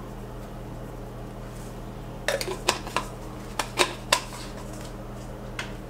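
Kitchen utensils and cookware clinking: a handful of sharp clinks and knocks about two to four seconds in, and one more near the end, over a steady low hum.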